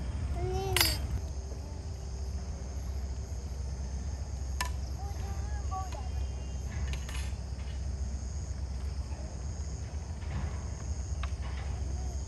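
Steady chirring of crickets or other insects, with a few sharp clinks of metal utensils on plates and dishes, and brief snatches of voices.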